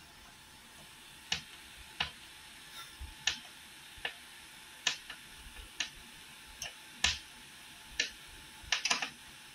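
Hand screwdriver turning a cross-head screw tight into a rack frame: about ten short, sharp clicks, roughly one a second, with a quick run of clicks near the end.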